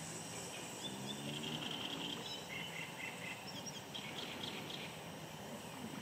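Small birds chirping and trilling in short runs over a steady outdoor hiss, with a brief low drawn-out sound about a second in.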